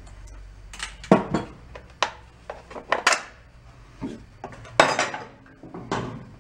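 Metal engine parts and hand tools clinking and knocking as they are handled and set down during engine teardown: a string of irregular sharp clinks and clanks.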